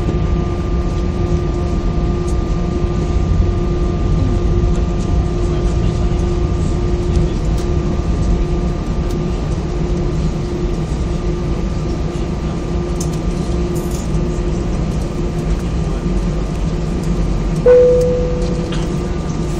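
Airbus A319's CFM56-5B jet engines running steadily at low power, heard from inside the cabin as a deep rumble with a steady hum. A single chime rings out near the end.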